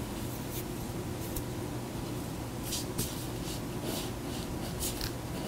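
Ballpoint pen writing on a sheet of paper on a table: short, irregular strokes of scratching, over a steady low hum.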